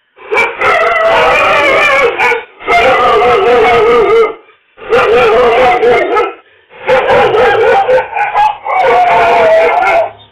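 A dog howling in distress under a lion attack: a string of long, wavering cries, each a second or two long, with short breaks between them.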